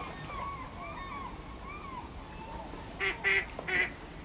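A waterbird gives three loud calls in quick succession about three seconds in. Behind them, softer calls repeat about twice a second over a steady rush of river water.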